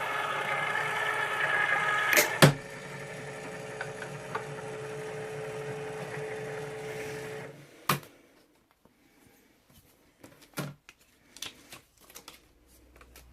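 Craftwell Snap electric die-cutting machine's motor running steadily as it feeds the cutting plates and die through, with two sharp clicks about two seconds in, then a quieter steady hum until it stops a little past halfway. A click follows, then a few faint handling clicks.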